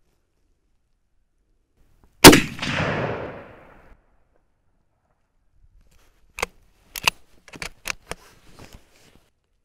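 A single shot from a scoped Lee-Enfield No. 4 (T) .303 bolt-action rifle: a loud crack with an echoing tail of about a second and a half. A few seconds later comes a quick run of metallic clicks and clacks as the bolt is worked to eject the case and chamber the next round.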